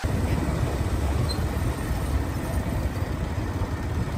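Steady low rumble of wind and road noise from riding along a street on a two-wheeler.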